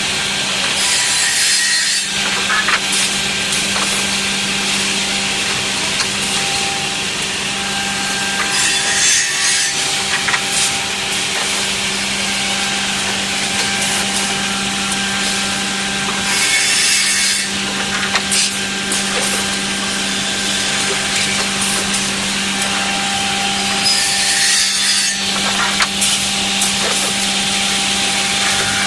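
Woodmaster automatic double-end cutting and drilling machine running with a steady motor hum, its saws cutting through wood in a louder pass about every eight seconds, four times.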